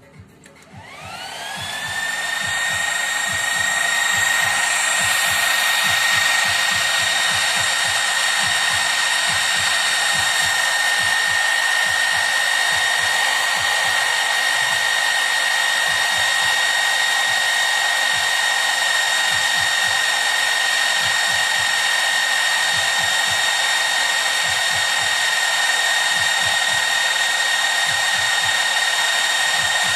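Three small cooling fans on a Peltier cooler's heatsink spinning up about a second in, the whine rising in pitch and then holding steady. They then run with a steady high whine over a rush of air.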